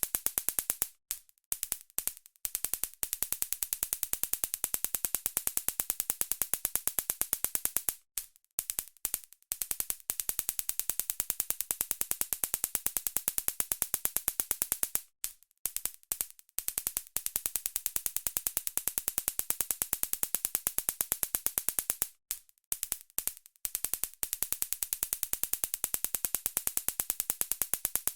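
Taser stun gun arcing: a rapid, even crackle of sharp electric clicks. It runs in stretches of several seconds, each broken by a brief stuttering pause.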